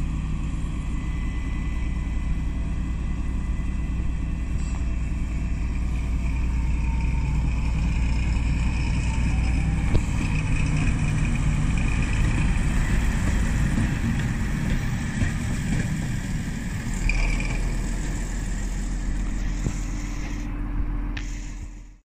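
Diesel shunting locomotive running steadily as it moves past, with a low engine drone; the engine note deepens about three quarters of the way through.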